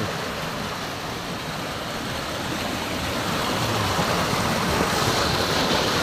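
Clear stream water rushing fast through a narrow stone-walled channel: a steady rushing hiss that grows gradually louder.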